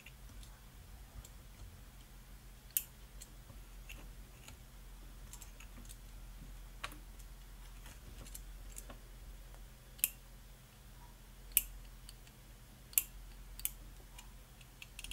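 Scattered light clicks and taps, about eight spread over fifteen seconds, over a faint steady low hum.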